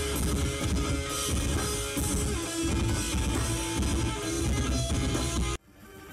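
Live metal band playing on an open-air stage: distorted electric guitars, bass guitar and drum kit. The music cuts off abruptly about five and a half seconds in, and another sound starts to fade up.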